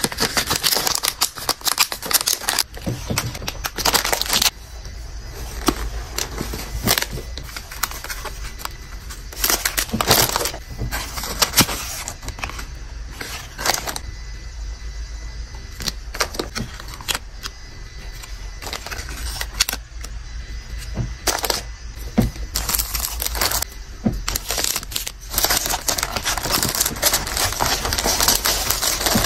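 Clear plastic zip-lock pouches and cellophane sleeves crinkling and rustling as they are handled, sealed and packed, then tissue paper rustling as it is folded into a cardboard mailer box, in irregular bursts of varying length.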